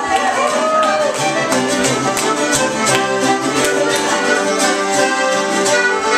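Irish traditional music: accordion and fiddle playing an instrumental passage between sung verses, over a steady beat.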